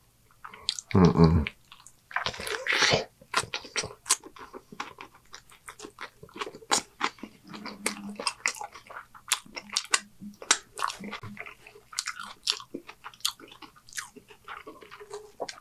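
A man chewing a mouthful of homemade cheeseburger: a steady run of quick, wet smacking and crunching mouth sounds.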